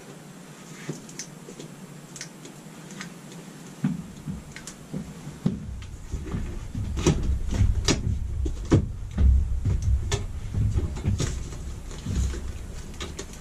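Hands working on a camper's ceiling air-conditioner opening: many sharp plastic and metal clicks and knocks of parts being handled and pushed into place. A low rumble of rubbing starts about four seconds in, and the clicks come thicker after that.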